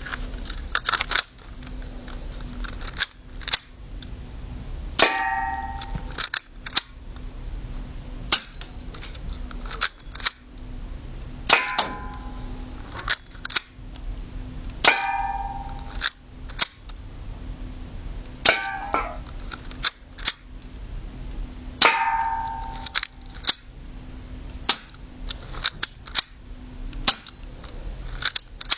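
A BB gun fired again and again, each shot a sharp snap, at short irregular intervals. Several shots are followed by a brief metallic ring as a BB strikes the metal target.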